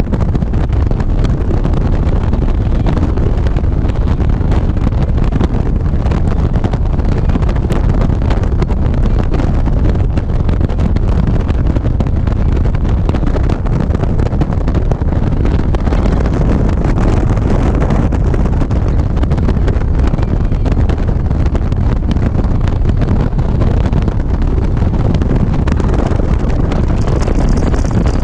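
Loud, steady wind buffeting the microphone of a camera on a moving motorcycle at road speed, with the motorcycle's engine and tyre noise blended in underneath.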